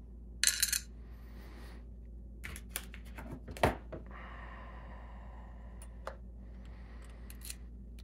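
Small metal lock parts and tools clinking as an ASSA Desmo padlock cylinder is taken apart. A bright metallic jingle comes about half a second in, then a run of sharp clicks ending in a louder clack a little before the middle, then light scraping and a few faint taps.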